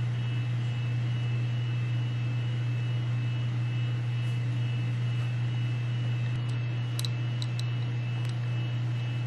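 Steady low mechanical hum with a thin high whine above it, unchanging throughout. A few light clicks come about seven to eight seconds in.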